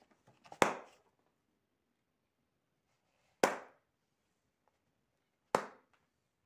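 Three sharp thwacks, each dying away quickly, spaced two to three seconds apart.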